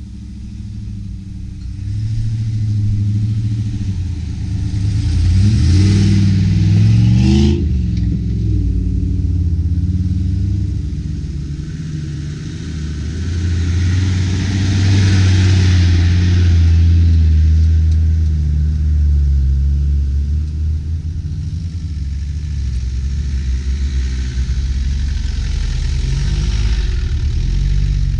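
Land Rover Discovery 4x4s driving slowly along a dirt track, their engines running at low revs. One engine revs up, rising in pitch, about six to seven seconds in, and the engine sound swells as a vehicle comes close about halfway through.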